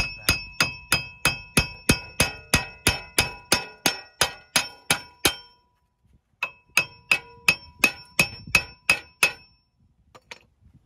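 Claw hammer striking the rusted front wheel hub and bearing assembly of a Chevy Equinox, driving the hub bearing out of the steering knuckle: steady ringing metal blows about three a second. The blows stop briefly a little past halfway, then resume for about three seconds before ending.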